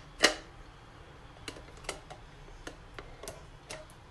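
Glass pot lid with a metal rim clicking and tapping against a stainless steel sink: one sharper knock just after the start, then a scatter of light taps.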